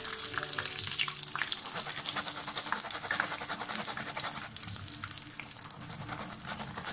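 Hot oil sizzling and crackling steadily around besan-coated potato cutlets shallow-frying in a pan; the cutlets are browned on both sides and ready to come out.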